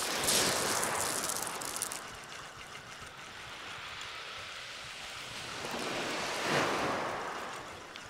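Small waves breaking and washing on a shingle beach, two swells of surf, one right at the start and another about six seconds in, each rising and fading away.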